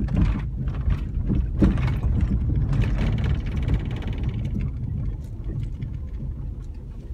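Road noise inside a vehicle's cab as it drives over a rough, rocky dirt road. A steady low rumble from the tyres and suspension is broken by jolts and knocks over the bumps, and a fast rattle comes through between about three and four seconds in.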